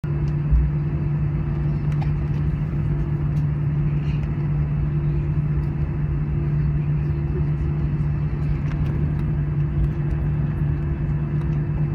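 Steady cabin hum and low rumble of an Airbus A320 on the ground before takeoff, with a brief low thump about half a second in.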